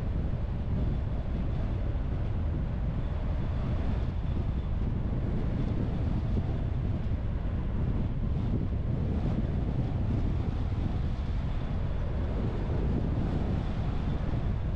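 A car driving along a road: steady low rumble of tyres and engine with a wind-like hiss.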